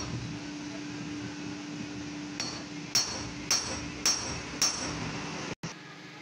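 Hammer striking a metal drift held against an aluminium motorcycle cylinder head: five sharp, ringing metal-on-metal blows about half a second apart, starting about two and a half seconds in, over a steady low hum.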